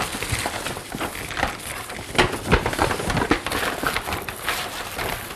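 Irregular knocks, clunks and rustling as groceries are handled and set down on a kitchen counter.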